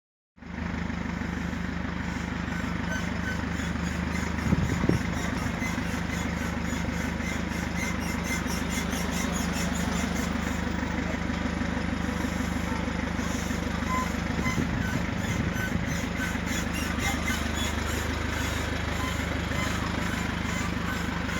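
Driveshaft universal-joint cross bearings squeaking in a steady rhythm with the shaft's rotation over a vehicle's running engine: the sound typical of failing U-joint bearings. A couple of short knocks about four and a half seconds in.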